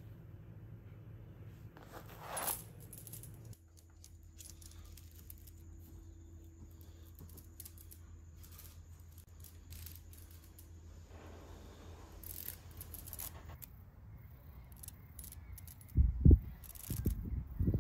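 Steel choke chain links clinking and rattling now and then over a low steady hum. Near the end a few loud low thumps.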